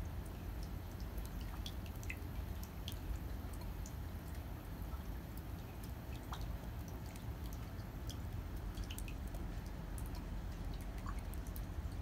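Light winter rain: scattered raindrops dripping and ticking at irregular intervals, over a steady low rumble.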